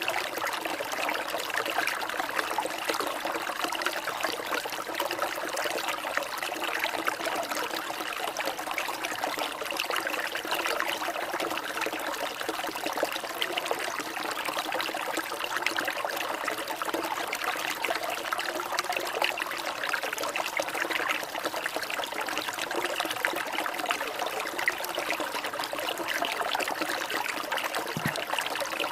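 Water trickling steadily and without a break.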